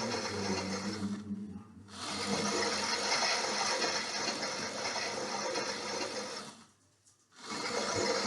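Theo Klein 9213 Bosch toy washing machine playing its recorded washing-machine sound, a steady mechanical whirring noise that breaks off briefly twice, about a second in and near the end.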